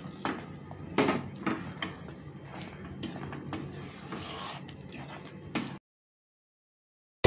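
Wooden spatula stirring and scraping a thick semolina mixture in a nonstick pan, irregular scrapes and soft knocks. It cuts off suddenly about six seconds in.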